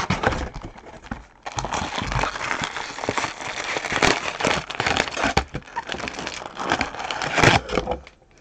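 Foil-wrapped trading card packs crinkling and rustling as they are pulled out of a cardboard box and stacked, with sharp crackles throughout. It starts in earnest about a second and a half in and dies away just before the end.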